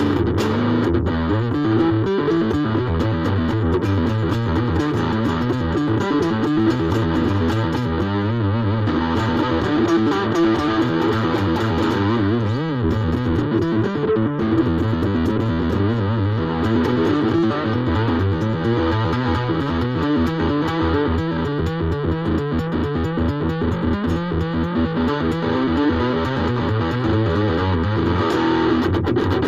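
Ibanez AXS42 electric guitar, rewired with solid-core vintage wire, played continuously through distortion with its volume knob rolled back to about half.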